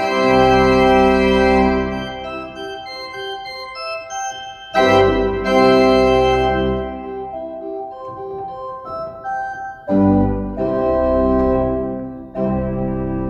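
Pipe organ playing sustained chords on the manual with a deep pedal bass. It is loudest at the start, then comes back in with full chords about five seconds in and again about ten seconds in, after quieter passages.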